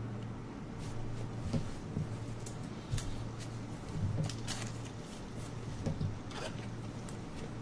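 Trading cards being flipped and handled: scattered light rustles and clicks, a few of them sharper, over a steady low electrical hum.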